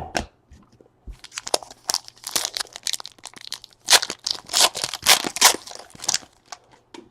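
Foil wrapper of a trading card pack being torn open and crinkled by hand: a run of short rips and crinkles over several seconds.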